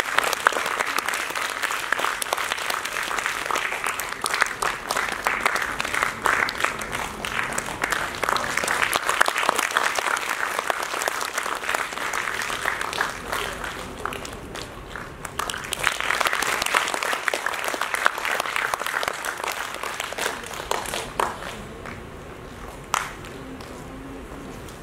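Audience applauding, with a brief lull about fourteen seconds in, then dying away near the end.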